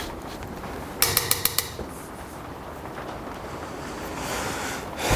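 A quick run of five or six sharp metallic clicks about a second in, typical of a chainsaw chain's links clicking as the chain is pulled along the bar to bring the next tooth up for filing.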